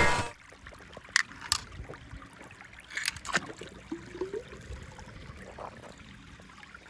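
Soft handling of small toys: a few light clicks and taps with faint rustling in between.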